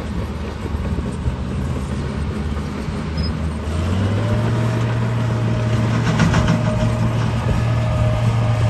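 Bulldozer's diesel engine running steadily, then picking up to a higher steady speed about four seconds in, with a thin whine coming in as it does.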